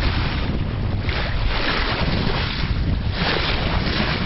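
Sea water rushing and splashing along a sailing yacht's hull at the bow as she sails, swelling and fading about every two seconds. Wind buffets the microphone underneath.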